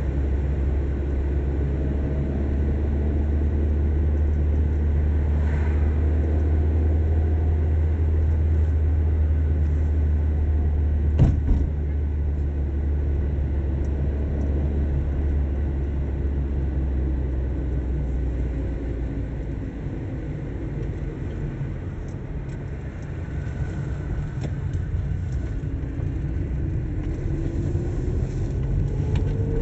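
A car's engine and tyre noise heard from inside while driving: a steady low rumble with faint engine tones that shift in pitch. There is one sharp knock about halfway through, the rumble eases about two-thirds of the way in, and the engine note rises near the end.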